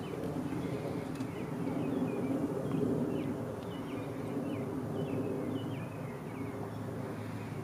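Outdoor ambience: a small songbird giving many short chirps in quick succession over a steady low background rumble.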